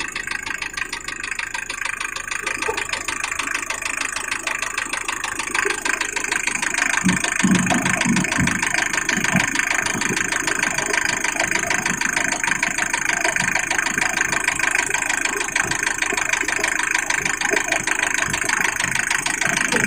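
Mazda Bongo diesel engine idling steadily with a fast, even rhythm, running while air is bled out of its injector lines after a cylinder-head rebuild.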